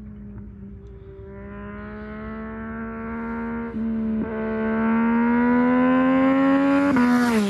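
2022 Yamaha MT-09 SP's three-cylinder engine through a Spark exhaust with no dB killer, accelerating hard toward the listener and growing louder, its pitch climbing with two quick breaks at gear changes. Near the end the pitch drops sharply as the bike flies by.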